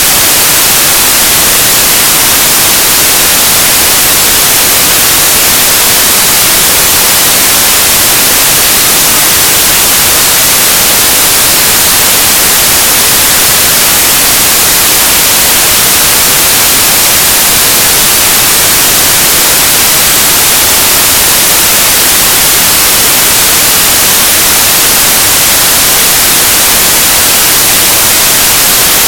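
Loud, steady static hiss, even and unchanging, strongest in the high end.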